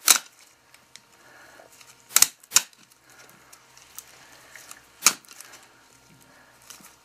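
Tin snips cutting through a deer's ribs: four sharp snaps, two close together about two seconds in and one about five seconds in.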